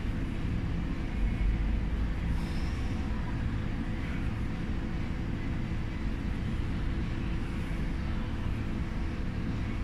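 Steady low rumble with a faint steady hum underneath, unchanging throughout: the background noise of a large room.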